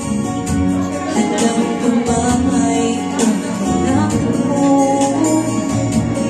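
A woman singing live into a handheld microphone over instrumental accompaniment with a light, steady beat.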